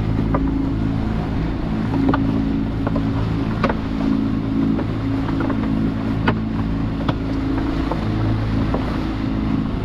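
Small boat's engine running steadily under way, with water rushing past the hull and wind on the microphone. Scattered sharp ticks and knocks come from a gill net, with its floats and lines, running out of a bin over the side.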